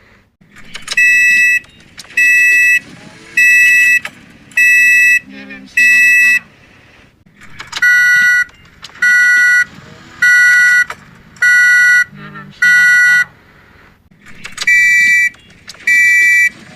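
Toyota Corolla warning beeper sounding a steady run of electronic beeps, each a little over half a second long and about one every 1.3 seconds. They come in runs of five with short gaps between, the two-note pitch of the beep changing from one run to the next.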